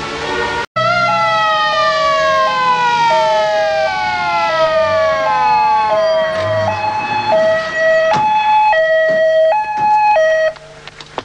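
Emergency vehicle's two-tone hi-lo siren, alternating between two notes about every 0.7 s, with a separate falling tone sweeping down beneath it for the first several seconds. The siren cuts off abruptly near the end.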